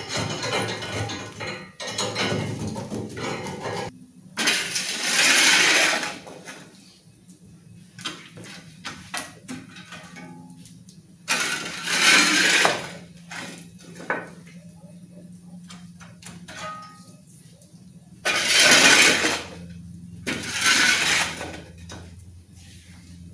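Metal ember shovel scraping hot coals across the ash-covered brick floor under the grill, in several separate strokes a few seconds apart. The embers are being piled up on one side to even out the heat.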